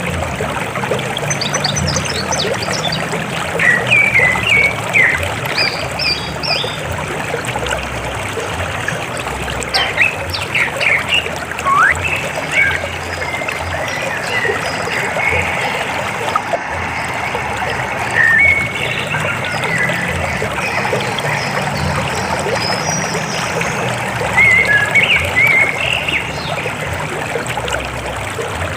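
River water flowing in a steady rush, with short bird chirps and quick rising calls scattered throughout.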